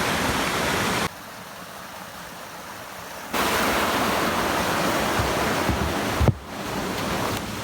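Fast mountain river running in whitewater, a steady rush of water. It turns quieter for about two seconds just after the start, then comes back full, with a short bump near the end.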